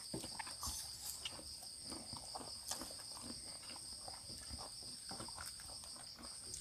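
Crickets trilling steadily in a high, pulsing chorus, with soft clicks and smacks of someone eating by hand and chewing close by.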